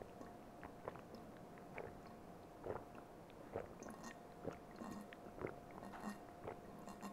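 A person gulping apple juice straight from a glass bottle: a steady run of soft swallows, roughly one a second.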